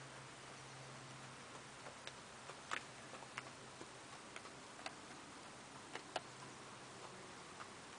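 Icelandic horse walking at a relaxed pace on frosty ground close by: a string of irregular hoof knocks and clicks, the loudest about a third of the way in and again near three quarters.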